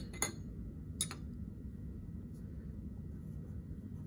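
Quiet room hum with two light taps, one just after the start and one about a second in.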